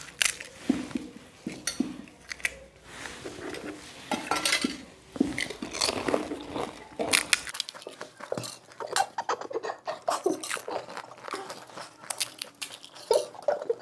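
Golgappa eating: an irregular run of small clicks and clinks from a spoon against a steel bowl of pani and hollow puri shells being cracked open, with crunching and chewing as the puris are eaten quickly.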